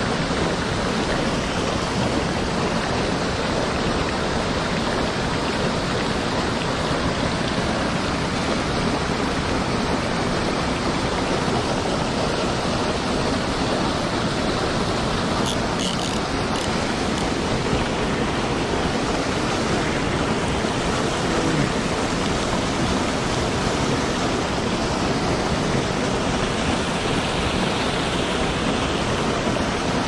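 Water falling in thin streams over a concrete wall and splashing into the pool below: a steady rush of falling water.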